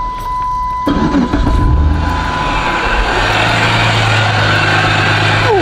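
A steady electronic warning tone cuts off as a Dodge Charger's engine cranks and fires about a second in, then settles into a steady idle.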